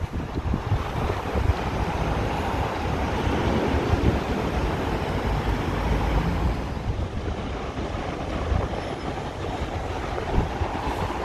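Wind buffeting the microphone over a steady low rumble of street noise.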